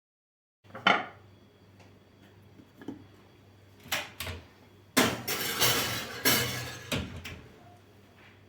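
Kitchen dishes and utensils being handled: separate clinks and knocks, with a longer scraping, rustling stretch in the middle.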